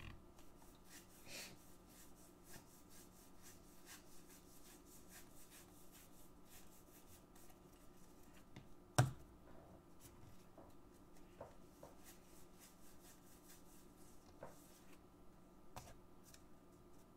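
Trading cards rubbing and flicking softly as they are slid one behind another through the hands, with one sharper tap about nine seconds in, over a faint steady hum.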